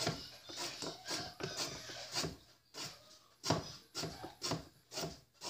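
Chef's knife chopping a thin carrot into rounds on a plastic cutting board: a dozen or so sharp taps at an uneven pace, with a brief pause around the middle.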